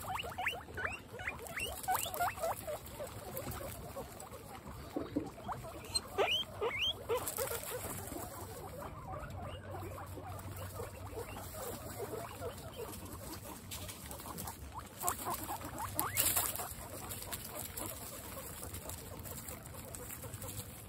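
Guinea pigs squeaking in bouts of quick rising calls: at the start, about six seconds in, and again about fifteen seconds in. A steady patter of rain runs underneath.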